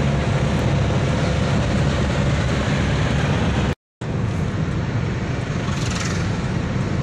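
Steady engine and road noise inside a moving car's cabin. It breaks off into a brief moment of silence about four seconds in, then carries on.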